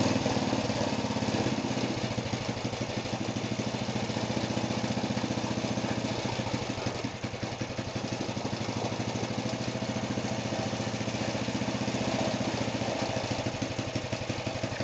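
Freshly rebuilt Briggs & Stratton 5 hp single-cylinder engine running steadily on its first start after the rebuild, with a brief dip in speed and loudness about halfway through.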